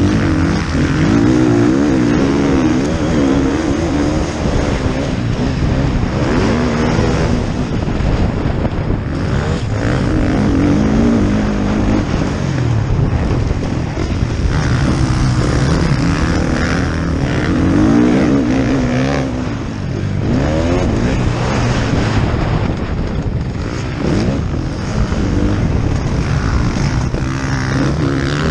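Motocross bike engine heard close up from the rider, revving up and dropping back again and again as the rider accelerates out of corners and shifts, with other bikes on the track.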